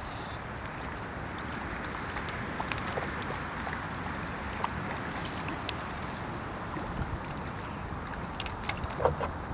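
Steady outdoor background noise, an even wind-like rush, with a few faint clicks near the end.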